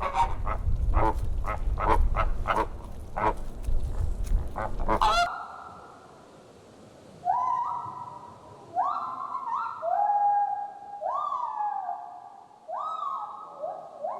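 Flamingos honking in a dense, rapid, goose-like chatter over a low rumble. After an abrupt cut about five seconds in, a gibbon calls in hooting whoops, each note rising and then holding, about one a second.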